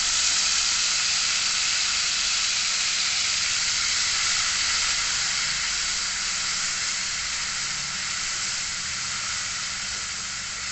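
Ground spice paste sizzling loudly as it fries in hot oil in a wok, a dense steady hiss that eases off slowly.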